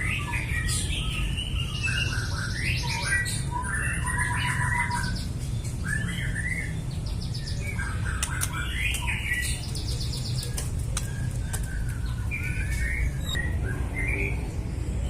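White-rumped shama calling and singing in short, varied phrases with quick trills and squawky notes, over a steady low hum.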